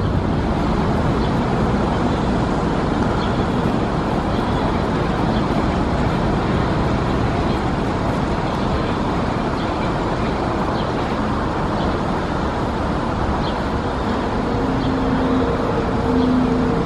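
MBTA Orange Line 01200-series subway train running away along the tracks, a steady rumble mixed with road traffic noise. A brief steady low tone sounds near the end.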